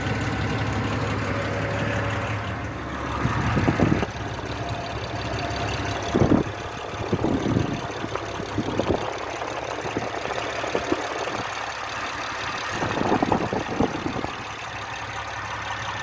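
Mitsubishi Pajero's 6G74 V6 engine idling hot, with the knocking and ticking that the owner is complaining of. A few brief louder rushes of noise come and go over the steady run.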